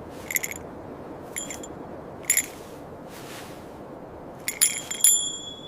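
Small bells clinking and tinkling a few times over a steady hiss, then a quick cluster of chimes about four and a half seconds in, leaving one clear ringing tone that holds for about a second.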